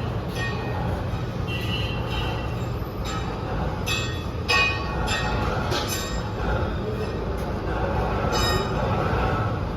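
Heavy machinery running: a steady low rumble with irregular, short, high metallic squeals and clangs, and one louder knock about four and a half seconds in.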